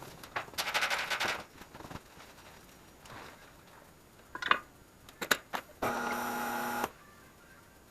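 Tire changer machine at work during tire mounting: a short buzzing rattle, a few sharp clicks, then a steady motor hum for about a second near the end.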